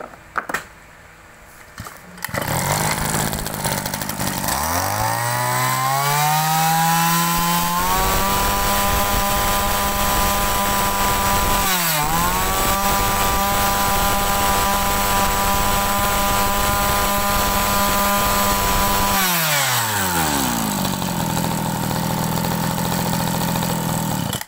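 A Mitsubishi TL261 brush cutter's small two-stroke engine starts about two seconds in. It is throttled up to high, steady revs, dips briefly once about halfway, then drops back to idle about five seconds before the end and cuts off suddenly.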